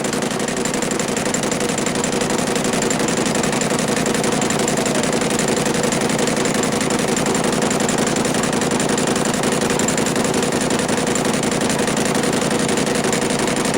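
Metal lathe running steadily through a cut: an even machine hum with a few steady tones that does not change.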